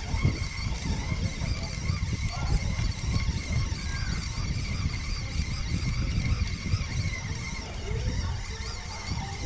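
Wind buffeting the microphone in a fluctuating low rumble, with a faint wavering high whine above it.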